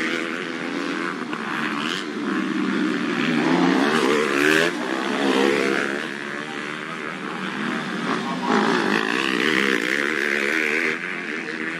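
Motocross bike engines racing past, their pitch repeatedly rising and falling as the riders rev and back off.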